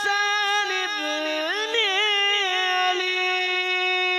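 A man singing an Urdu devotional poem solo, drawing out long held notes with winding melodic turns.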